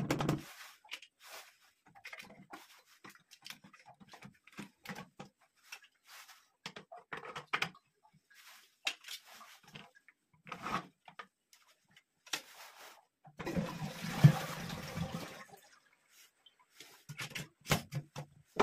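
Plastic parts of a concealed toilet cistern's flush-plate frame and push rods clicking and knocking as they are handled. About two-thirds of the way through comes a rush of flushing water lasting about two and a half seconds.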